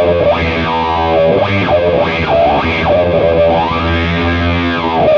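Heavily distorted electric guitar through a parallel blend of octave-up hyper fuzz and HM-2 style chainsaw distortion, playing a slow doom riff in E Phrygian with sustained low notes. An Ibanez Weeping Demon wah pedal on its bass setting is rocked in sweeps about once a second.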